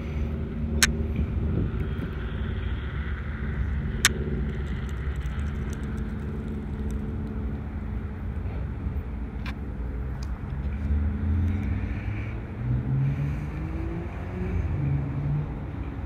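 Steady low rumble of a motor vehicle's engine, with a sharp click about a second in and another about four seconds in. Near the end the engine note rises in steps, as if accelerating.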